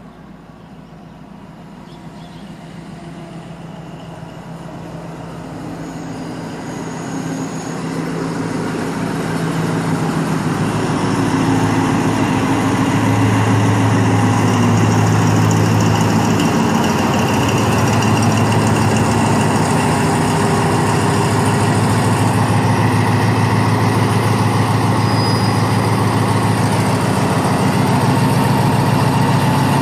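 Diesel locomotive engine growing steadily louder as it approaches, then running loud and steady with a low hum as it hauls passenger carriages past.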